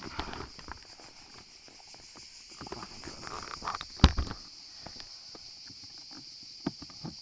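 Scattered light clicks and knocks, with one sharp click about four seconds in, over a steady high-pitched insect drone.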